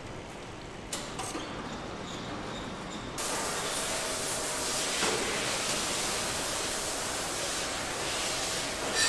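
Factory machine noise with two short clicks about a second in, then from about three seconds in a louder steady hiss.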